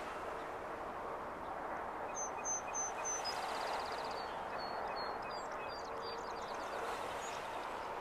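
A small songbird sings one phrase about two seconds in: four quick high notes, a short fast trill, then a jumble of varied notes, over a steady hiss of outdoor wind and water noise.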